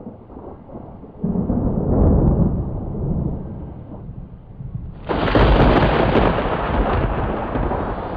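Deep, thunder-like rumbling noise. It swells about a second in, then jumps to a louder, brighter rumble about five seconds in.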